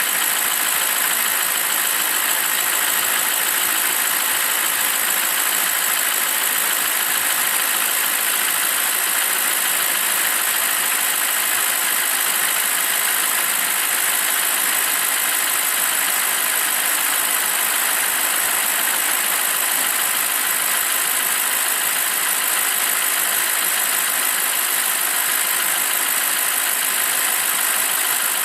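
BMW 745i E65's N62 V8 engine idling steadily shortly after a cold start.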